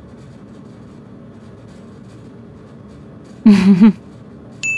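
A short, loud cry with a wavering pitch about three and a half seconds in, over a low steady hum. Just before the end, a bright bell-like ding strikes and rings on.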